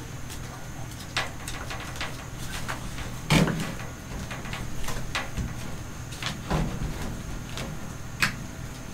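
Irregular knocks and clicks of hands working a gasket strip onto a pickup's bed rail under a camper shell, the loudest knock about three and a half seconds in.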